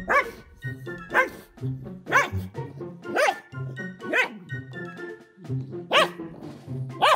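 A dog barking about once a second, each bark dropping in pitch, over background music with a steady beat.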